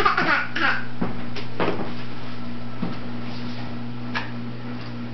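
A toddler's brief voice at the start, then a few light knocks as she handles plastic toys at a high-chair tray, over a steady low hum.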